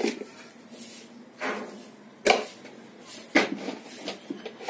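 A few knocks and short clatters of kitchen utensils and containers being handled, the sharpest about halfway through and another about a second later.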